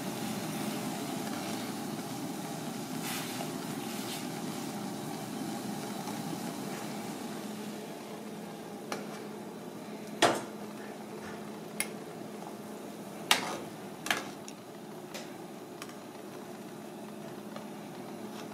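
Pot of broth boiling hard on a gas burner, a steady bubbling hiss, while a metal ladle skims off the foam. From about halfway, the ladle clinks sharply against the pot and a steel bowl about five times.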